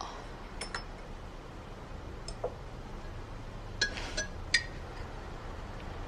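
Porcelain bowls, spoons and a ladle clinking lightly at a dinner table, a few scattered ringing clinks with a small cluster about two-thirds of the way through, as soup is ladled into a small bowl.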